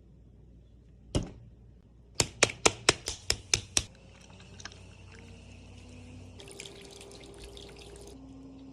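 One sharp click, then about a second later a quick run of about eight sharp clicks, roughly five a second, followed by a faint steady hiss.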